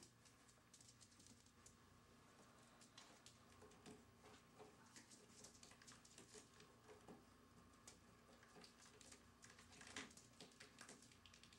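Faint, irregular clicking and tapping of puppies' claws on a tile floor over a low steady hum, with one louder tap about ten seconds in.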